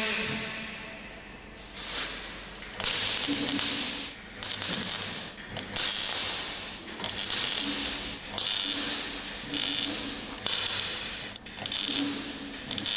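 MIG welder stitch-welding a car's sheet-steel rocker panel: about ten short bursts of arc crackle, each roughly a second long with brief pauses between, starting about two seconds in. A low hum sits under some of the bursts.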